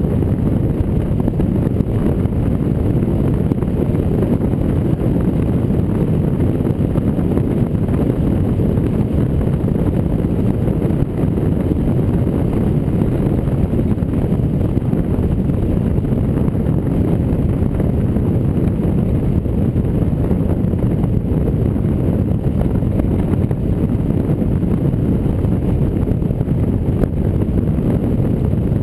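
A Jeep Rubicon driving along a gravel road, heard from a camera mounted on the hood: a steady low rumble of wind buffeting the microphone mixed with tyre and engine noise.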